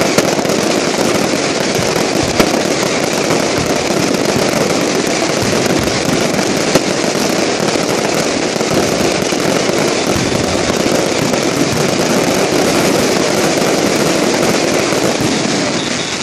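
Fireworks crackling densely and without a break, with a few sharper pops standing out.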